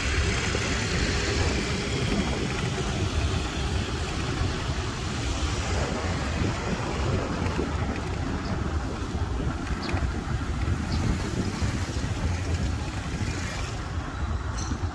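Road traffic heard from a moving e-bike, a steady rumble of passing vehicles, with wind buffeting the microphone.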